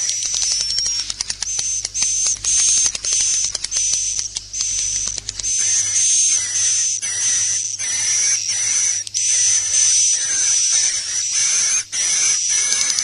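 Edible-nest swiftlets twittering: a dense, rapid, high-pitched chatter with a steady shrill whistle-like tone through it, broken by short gaps. It is the swiftlet roosting ('inap') call used to draw the birds to roost.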